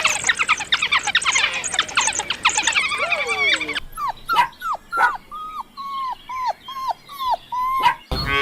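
Puppies whimpering and yelping: a dense run of high squeaks for the first few seconds, then a string of short whimpers, each dropping in pitch at the end, two or three a second.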